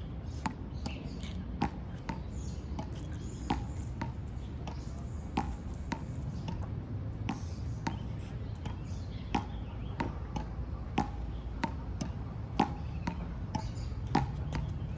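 Irregular sharp taps, some with a short ring, one or two a second, over a low steady background rumble.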